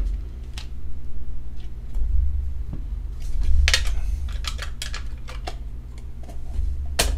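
Hands handling and opening a clear hard-plastic card case: scattered clicks and taps of hard plastic, a busier run of them about halfway through, over a steady low hum.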